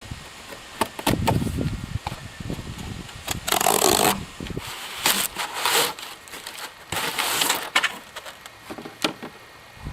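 Metal detector packaging and parts being handled: several rustling bursts with sharp clicks and knocks in between.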